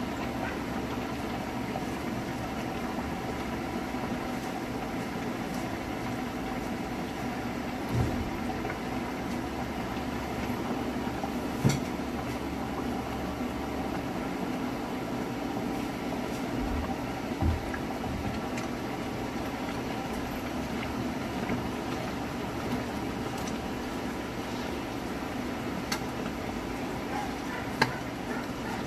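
Creamy sauce simmering in a frying pan under a heap of wilting spinach, a steady hiss, with a few light knocks of a utensil against the pan.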